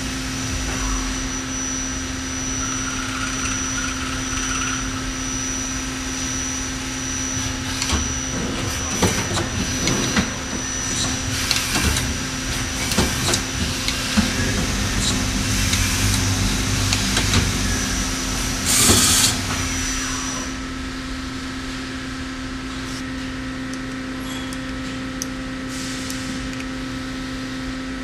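Miyano LM-11 CNC lathe running, with a steady hum and a high whine. Between about 8 and 20 seconds in come irregular mechanical clicks and clunks, and near 19 seconds a loud rush of noise lasting about a second. After that the whine stops and the machine settles to a lower steady hum.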